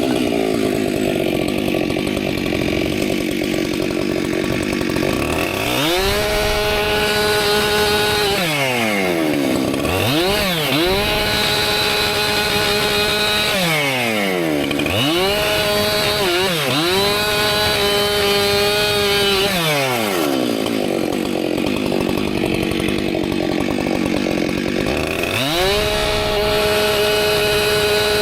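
Husqvarna professional chainsaw cutting firewood. The two-stroke engine revs up to full throttle and drops back down about five times as it goes in and out of the cuts.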